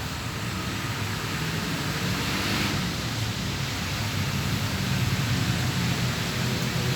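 Steady rushing background noise with a low hum underneath, typical of open-air ambience at a sports field.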